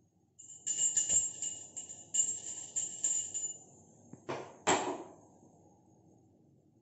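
Small brass puja hand bell rung rapidly for about three seconds, several clear metallic rings a second. About a second after it stops come two short, loud swishing or scraping noises.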